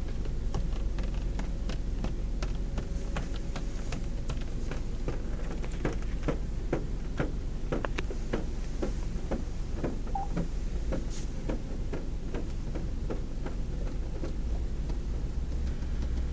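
Automatic car wash machine running: a steady low rumble with a stream of irregular clicks and taps over it.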